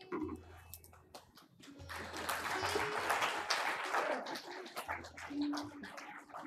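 Audience applause that swells about two seconds in and tapers off, over low chatter and faint background music.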